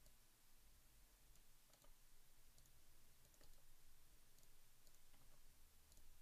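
A handful of faint computer mouse clicks, spaced irregularly, over an otherwise near-silent room.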